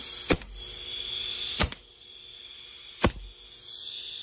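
3D-printed HPA Nerf blaster core firing three times, about a second and a half apart: sharp cracks as its poppet valve dumps air from a 100 PSI tank. Between shots comes a hiss of air leaking past the poppet's worn front O-ring.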